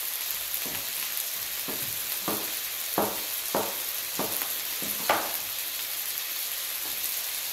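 Food frying in a pan with a steady sizzle, while a utensil knocks and scrapes in the pan about nine times in quick succession, roughly every half second, the last one the loudest.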